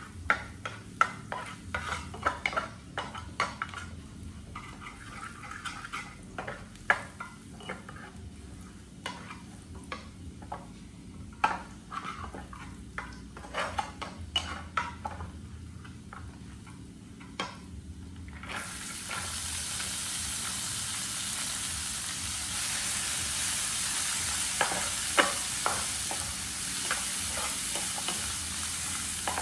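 A plastic spatula scraping and tapping in a nonstick frying pan as rice is stir-fried. About two-thirds of the way through, a loud, steady sizzle starts suddenly as chopped vegetables go into the hot pan, and the stirring clicks go on over it.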